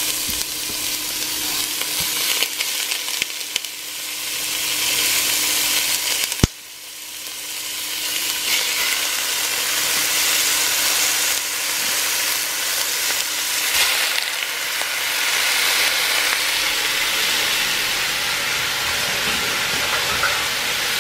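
Ground beef sizzling as it fries in oil in a pot. About six and a half seconds in there is a sharp click, after which the sizzle drops and then builds back up.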